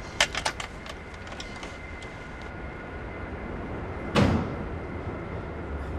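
A few quick sharp clicks near the start, then a Mini's car door slamming shut once about four seconds in.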